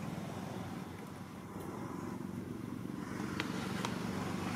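A steady low hum, with a couple of faint clicks near the end.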